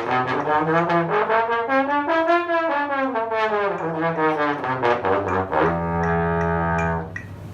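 A brass instrument playing a wavering line that climbs in pitch and falls again, then holds one long steady low note that stops shortly before the end.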